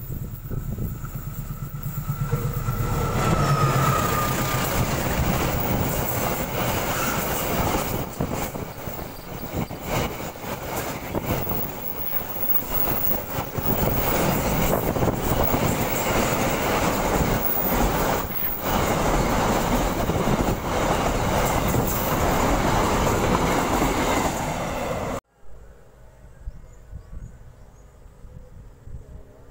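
A diesel locomotive passing close with its engine running, followed by a long freight train of container flat wagons rumbling past, wheels clacking irregularly over the rails. About 25 seconds in the sound cuts off abruptly to a much quieter background.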